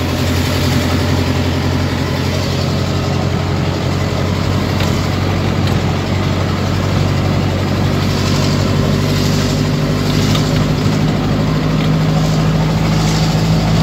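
Avia A75 truck's four-cylinder diesel engine running under load while driving, loud and harsh through a cracked exhaust, heard from inside the cab. The engine note climbs slightly in the second half.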